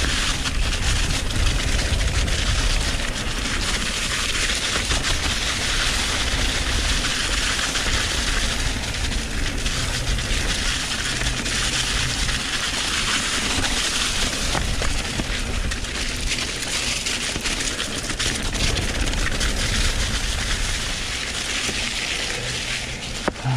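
Mountain bike rolling along a trail covered in dry fallen leaves: continuous crunching and crackling of leaves under the tyres, with many small rattling clicks from the bike and low wind rumble on a helmet-camera microphone.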